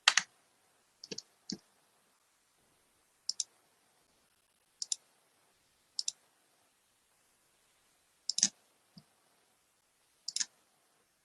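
Computer mouse clicking: about nine separate clicks spaced irregularly, some in quick pairs, the loudest about eight seconds in.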